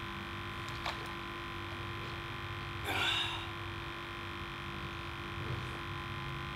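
Steady electric hum, with a faint click just before one second and a short scratchy burst about three seconds in.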